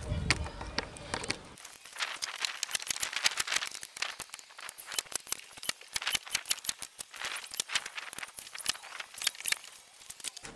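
Nail gun driving nails through OSB floor panels into the shed's timber frame: a dense, irregular run of sharp clicks and knocks, several a second, starting about a second and a half in.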